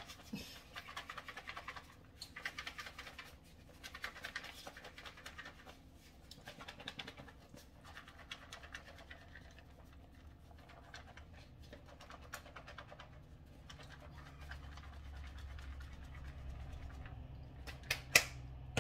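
Shredded cheese being shaken in a lidded plastic container to mix it: bursts of rustling shaking with short pauses between them. A low hum comes in after about fourteen seconds, and a couple of sharp clicks come near the end.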